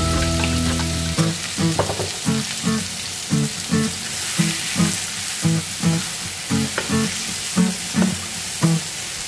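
Sliced zucchini, red pepper and onion sizzling in oil in a frying pan, stirred with a slotted spatula in regular strokes, about three every two seconds.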